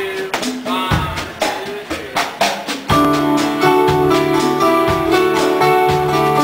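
A folk-rock band playing the opening of a song: a sparse intro of drum hits and a few notes, then about three seconds in the full band comes in, louder, with sustained chords over a steady drum beat.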